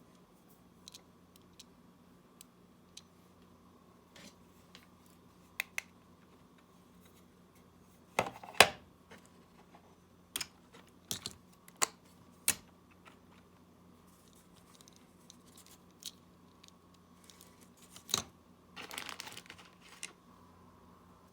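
Small clicks, taps and scrapes of tools and parts handled while opening up a Samsung Galaxy Gear S3 Classic smartwatch. The loudest knocks come about eight seconds in, and there is a short scraping stretch near the end.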